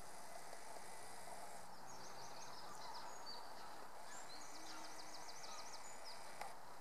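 A small songbird singing two short phrases, the second ending in a quick run of repeated notes, over a steady outdoor background hiss.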